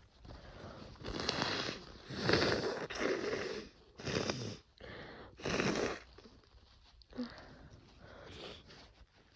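A congested person with a starting head cold blowing their nose hard, in about six forceful noisy blasts over a few seconds, followed by a few quieter sniffs near the end.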